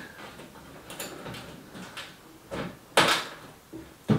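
A few short knocks and scrapes of objects being handled and set down, the loudest about three quarters of the way through, with a sharp knock near the end.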